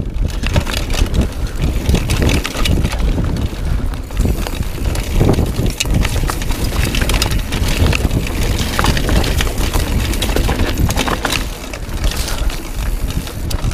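Mountain bike riding down a dirt and gravel singletrack: wind buffeting the camera's microphone and tyres rolling over loose ground, with many sharp clicks and rattles throughout.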